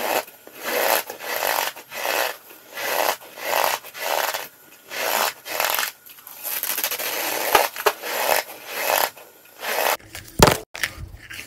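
Cornstarch being shaken in a clear plastic tub: a series of gritty swishing, scraping sounds, about one to two a second. Near the end the sound changes, with one sharp, louder thud.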